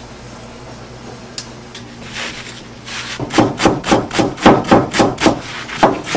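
Knife chopping on a wooden cutting board: quick, even strokes at about four a second, starting about three seconds in, with a short break near the end.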